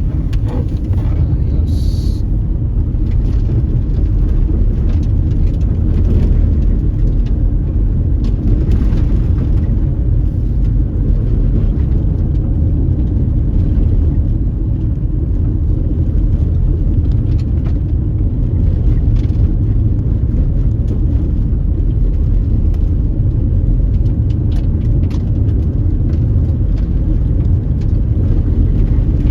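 Car driving along a dusty unpaved road: a steady low rumble of tyres and engine, with scattered faint ticks.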